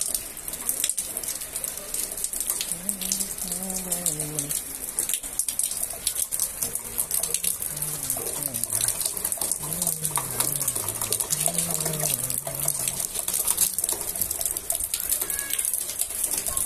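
Heavy rain falling on wet concrete paving: a steady hiss dense with the patter of individual drops. A low voice talks indistinctly through the middle stretch.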